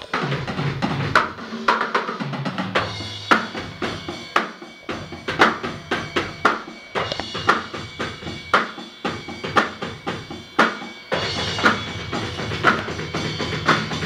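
Acoustic drum kit played in a steady rock beat: kick drum, snare and cymbals. The pattern gets fuller and busier about eleven seconds in.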